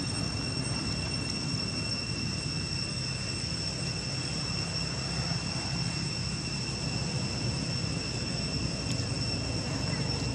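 Steady outdoor background noise: a constant low rumble with an unbroken high-pitched whine over it.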